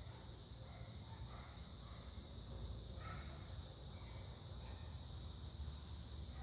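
1998 52" Hunter Original ceiling fan running on its low speed: a faint, steady motor hum with a constant high hiss over it.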